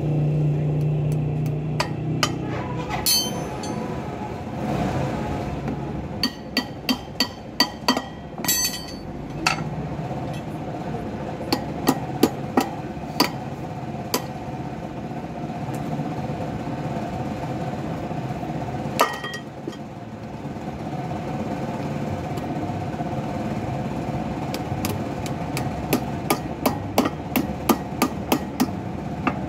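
Hammer blows on a steel drift set through a motorcycle wheel hub, driving a wheel bearing: sharp metal-on-metal strikes that come in several quick runs with pauses between them.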